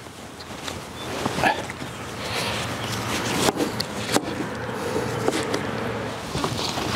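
Quilted fabric dog seat cover rustling and swishing as it is pulled up and over a car's back seats, with two sharp clicks near the middle and a short voice-like sound about a second and a half in.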